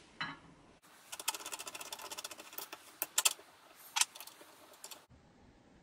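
Drill press chuck being turned by hand to grip the hole saw mandrel's shank: a quick run of clicks for about two seconds, then a few single clicks.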